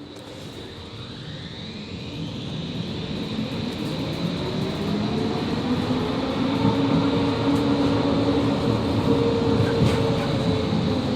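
Končar TMK 2200 low-floor tram accelerating. The whine of its electric traction drive rises in pitch in several tones and grows louder over the first several seconds, then runs steadily over the rumble of the wheels on the rails.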